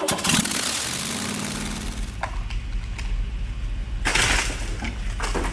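An engine running steadily with a low hum. It starts about a second and a half in, after a loud burst of noise, and sharp bursts of hiss come over it about four seconds in and again near the end.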